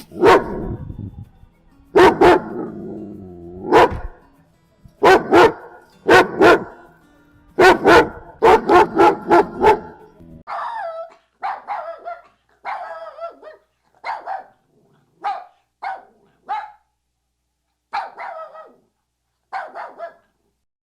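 Dogs barking: a run of loud, deep barks in quick groups, then after about ten seconds a different dog's higher, thinner barks, one at a time with short gaps.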